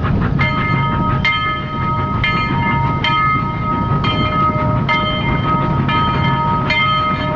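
Train running, a dense low rumble, with ringing tones that restart about once a second.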